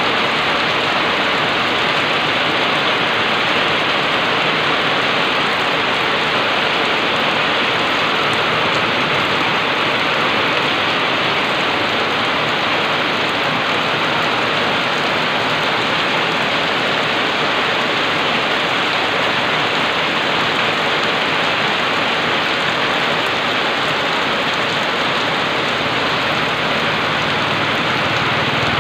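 Heavy rain falling steadily on a wet paved road and surrounding leaves: a dense, even hiss that does not let up. A low rumble rises faintly under it near the end.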